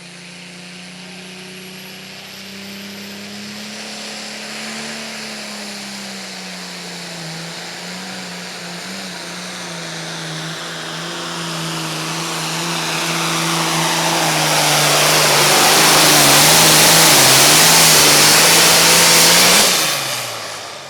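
Super Farm class diesel pulling tractor running hard under load as it pulls the sled down the track, its engine note holding steady while the sound grows louder and louder. The engine cuts off sharply near the end of the run.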